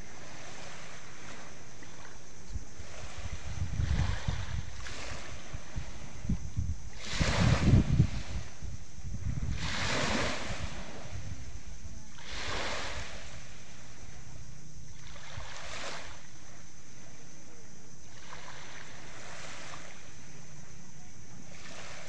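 Small sea waves lapping and washing up on the shore, a soft wash swelling every two to three seconds over a steady hiss of surf. Wind buffets the microphone with low rumbling gusts a few seconds in, loudest about eight seconds in.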